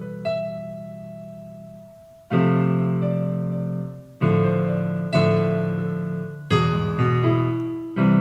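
Background piano music: slow sustained chords, struck every second or two and left to ring out.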